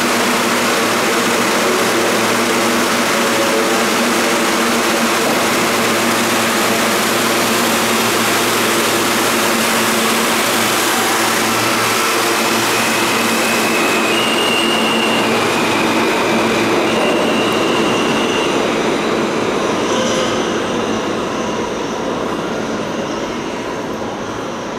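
R160 subway train pulling out of the station and accelerating past, with a loud steady rumble of wheels on rail and the hum of its motors. In the second half the wheels give a few brief high squeals, and the sound fades near the end as the last car leaves.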